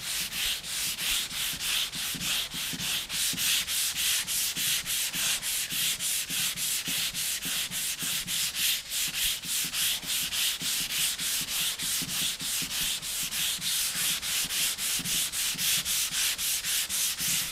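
220-grit sandpaper on a hand sanding block rubbing dry over the polyurethane primer of a car tailgate, in quick, even back-and-forth strokes.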